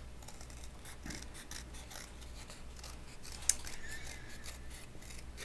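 Scissors snipping through thin cardboard in a run of short, irregular cuts, with one sharper click about three and a half seconds in.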